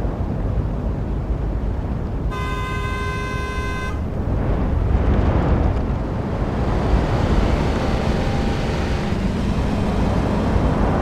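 Road traffic noise: a steady rumble of cars, with one car horn sounding for about a second and a half near the start. A little later the rumble grows louder as a vehicle passes.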